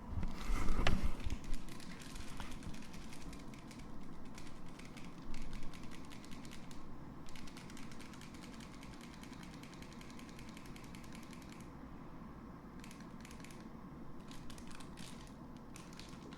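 Cats' claws clicking and scratching rapidly as they climb, with heavy low thumps in the first two seconds; the clicking thins out after about eight seconds.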